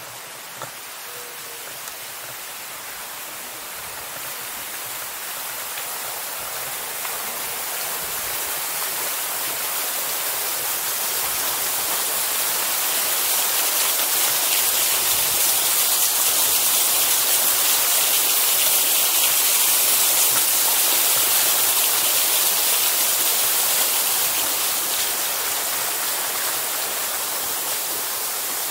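Pool fountains splashing steadily, a continuous hiss of falling water that grows louder through the first half and eases slightly near the end.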